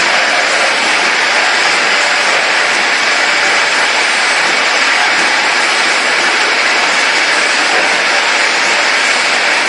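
Automatic cough syrup bottle filling and capping line running: a loud, steady mechanical din with no distinct beat.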